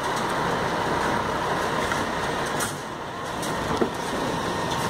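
Concrete pump truck's diesel engine running steadily while it stands by loaded with concrete, with a few short clicks over it.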